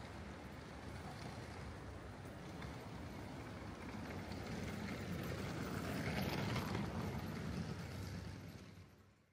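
Night-time city street ambience with traffic noise, swelling as a vehicle passes about six seconds in, then fading out near the end.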